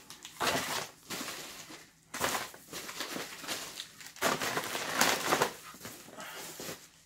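Brown paper bag and packaged ingredients crinkling and rustling as they are handled and packed back into the bag, in irregular bursts of about a second each.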